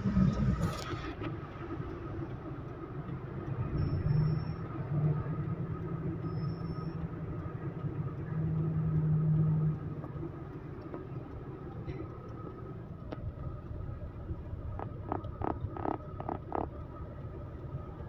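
Heavy truck's diesel engine running in slow stop-and-go traffic, heard from inside the cab as a steady low rumble that swells louder about four seconds in and again around eight to ten seconds in. A quick run of sharp clicks comes near the end.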